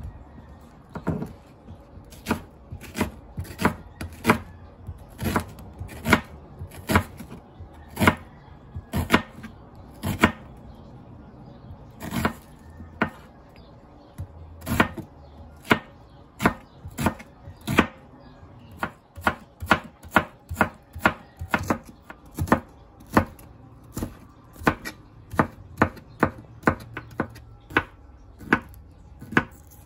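Red KAI Pure Komachi kitchen knife chopping red onion and garlic on a green plastic cutting board: sharp knocks of the blade hitting the board, about one a second at first, quickening to about two a second in the second half.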